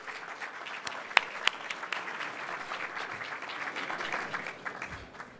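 Audience applauding, with two sharper, louder claps close by about a second in; the applause dies away near the end.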